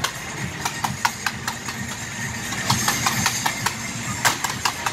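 Stadium pyrotechnics going off: many sharp, irregular bangs and crackles, several a second, bunching up about three seconds in. They sit over a steady rushing noise from the flame jets and the crowd.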